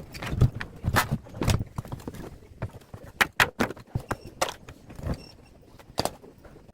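Irregular knocks and clanks of tools working on the parts of a top-loading washing machine as it is taken apart, a quick cluster of hits about three seconds in and a last single knock near the end.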